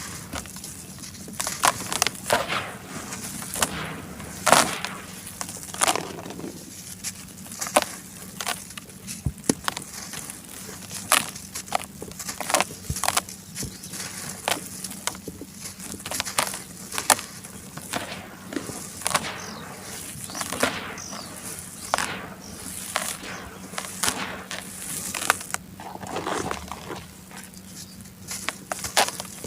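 Charcoal being crushed and crumbled, giving irregular gritty crunches and crackles, some sharp and louder than others, over a faint steady hum.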